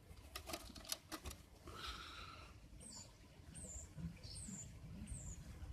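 Faint, very high chirps from a small bird: four short calls that each fall in pitch, about three quarters of a second apart. They follow a few light clicks and taps near the start.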